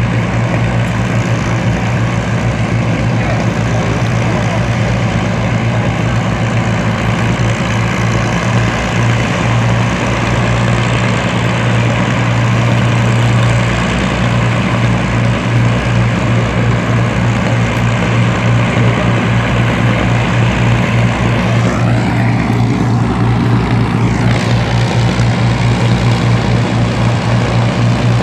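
Avro Lancaster bomber's four piston engines running with a steady low drone. About two-thirds of the way through, a higher tone briefly sweeps up and then back down.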